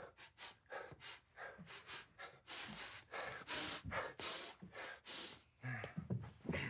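A man sniffing in many short, quick sniffs, smelling people at close range to find where a bad odour is coming from. Near the end there is a brief voiced grunt.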